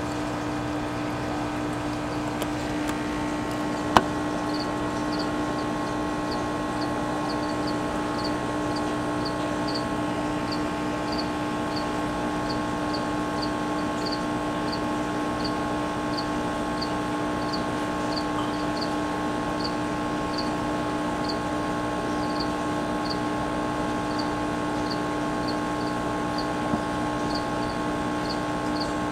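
Steady mechanical hum made of several constant tones, with faint high chirps repeating about one and a half times a second from about four seconds in, and one sharp click about four seconds in.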